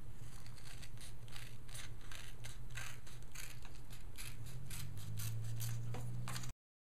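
Scissors snipping through a thick vinyl repair patch: a quick run of short, crisp cuts over a steady low hum. The sound stops abruptly near the end.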